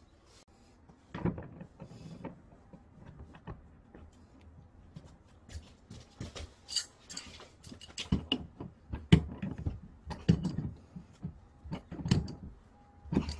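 A hand tool clicking and knocking against brass plumbing fittings as a fitting is threaded onto a wall water-pipe outlet. The irregular metal clicks come more often in the second half.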